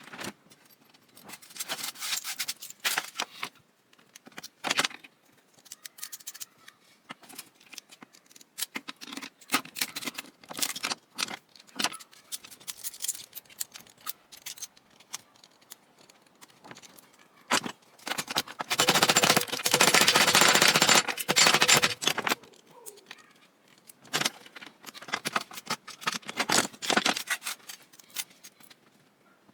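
Parts of an old Cuisinart food processor clicking, rattling and scraping as it is torn apart for scrap, with a louder steady rasping noise lasting about three seconds a little past the middle.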